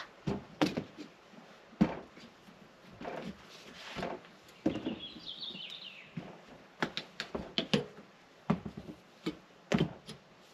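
Irregular knocks and thuds of boots and hands on a camper's rear ladder, with plastic steps, as a person climbs up onto the roof, about a dozen in all. A bird chirps briefly about five seconds in.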